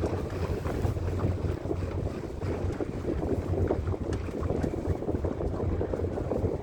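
Wind buffeting the microphone on a boat at sea, a rough, continuous low rumble.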